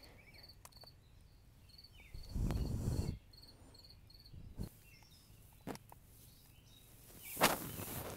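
Crickets chirping outside at night, a regular run of short, high chirps. A few brief rustles and a sharp knock near the end sound over them.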